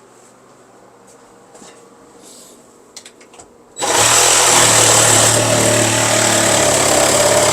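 A few faint clicks, then about four seconds in an electric power saw starts and runs loud and steady.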